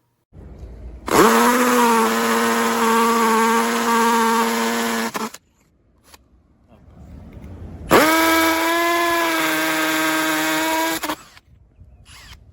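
Bosch EasyImpact 18V-38 cordless drill triggered twice. Each time it spins up quickly to a steady whine, holding about four seconds the first time and three the second.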